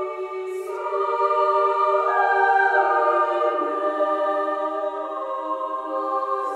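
Choir singing slow, sustained chords that change every second or two.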